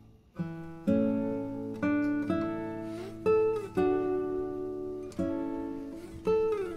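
Acoustic guitar music with plucked notes and chords, starting about half a second in after a brief gap. A couple of notes slide down in pitch.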